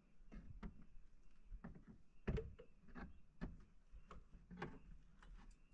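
Faint, irregular clicks and light knocks, a dozen or so, the strongest a little past two seconds in, over a faint steady high hum.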